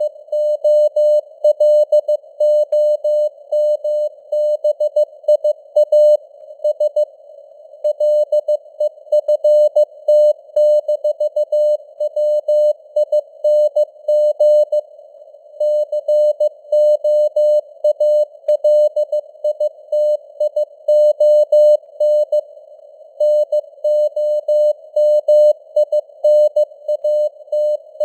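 Morse code (CW) at 15 words per minute, sent as a single mid-pitched tone keyed on and off in dots and dashes, with longer gaps between words. Underneath is a steady hiss of simulated radio receiver noise.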